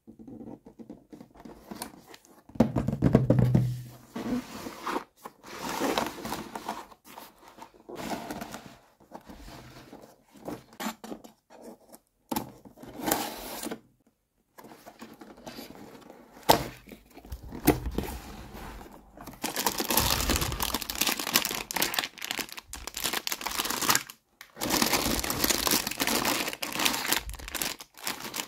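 Hands handling and opening a cardboard toy box: irregular scraping, tapping and tearing of the packaging, with longer stretches of crinkling and tearing in the second half as the clear plastic bag of toy pieces comes out.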